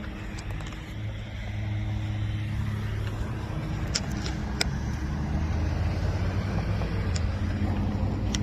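A motor vehicle's engine running steadily nearby, a low hum that grows louder after about a second, with a few sharp clicks about four seconds in.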